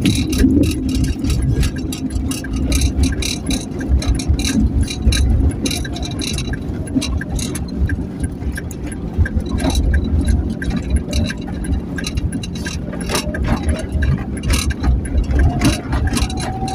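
Motor vehicle on the move: a steady low engine and road rumble with frequent light rattles and clicks throughout.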